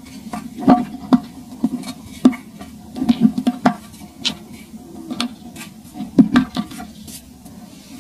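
Dry clumps of sand crushed and crumbled between the fingers, with crumbs pattering into a hard pot. The sound is irregular sharp crunches in clusters, thinning out in the last second.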